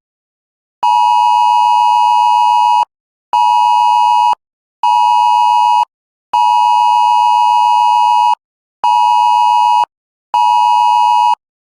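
Wireless Emergency Alert attention signal: a loud two-tone beep in a long-short-short pattern played twice, each long tone about two seconds and each short tone about one second, with half-second gaps.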